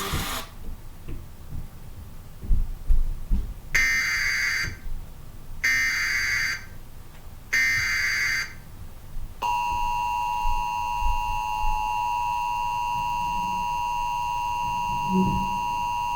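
Emergency Alert System tones from a television: three short SAME header data bursts about two seconds apart, then, about nine seconds in, the steady two-tone attention signal that holds to the end, announcing a weather warning. A few low thumps come before the first burst.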